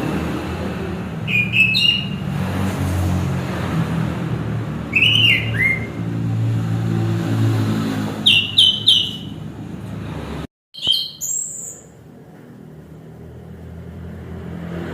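Orange-headed thrush (anis kembang) singing four short bursts of clear, sliding whistled notes a few seconds apart. A low rumble sits underneath and drops away about ten and a half seconds in.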